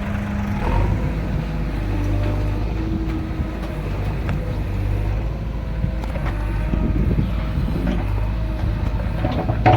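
Heavy diesel machinery engines running steadily, a continuous low drone.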